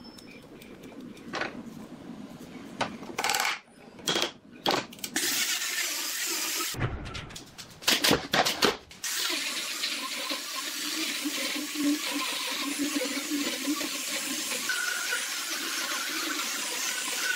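Chisel paring a wooden dowel flush, with scattered light clicks, then a few loud knocks. From about nine seconds in, an angle grinder fitted with a sanding disc runs steadily, sanding a wooden panel with a continuous hissing whir.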